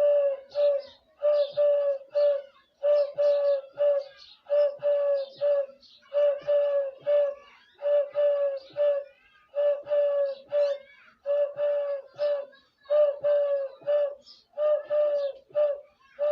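A man imitating a dove's coo by blowing into his cupped hands: short notes at one steady pitch, in three-note phrases repeated evenly about ten times, roughly one phrase every second and a half.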